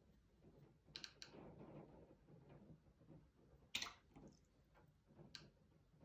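Near silence, with a few faint clicks and taps: two close together about a second in, the loudest near four seconds, and one more past five seconds, with a soft low rustle between them early on.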